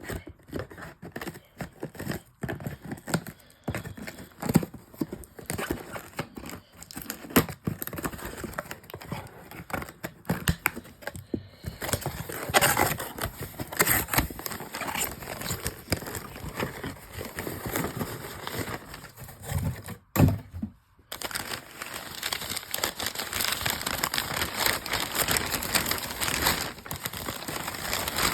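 Packaging being unwrapped by hand: wrapping crumpling and crinkling, with tearing and scattered small knocks of handling, in uneven bursts with a short pause a little past the two-thirds mark.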